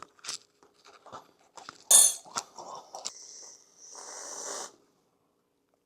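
Eating sounds: clicks and a sharp clink of a utensil on the dish, with bursts of crunching and chewing. The sound cuts to silence shortly before the end.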